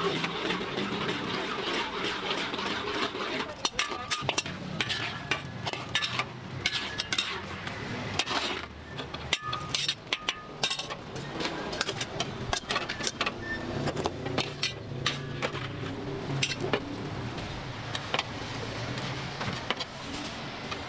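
Metal spatula and ladle stirring and scraping in a wok, with many irregular sharp clinks and clanks of metal on metal.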